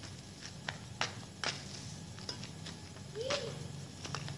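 Sharp taps of badminton rackets hitting a shuttlecock, mixed with flip-flops slapping on pavement, about half a dozen clicks spread irregularly. About three seconds in, a brief voice-like cry rises and falls.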